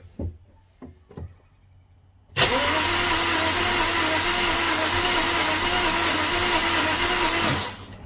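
A 2007 BMW N52 inline-six being cranked over by its starter motor, with coils and injectors unplugged so it does not fire, for a compression test. The cranking starts about two seconds in after a few light knocks, runs steadily with an even pulsing for about five seconds, and cuts off suddenly. The gauge on cylinder one reads zero: no compression in that cylinder.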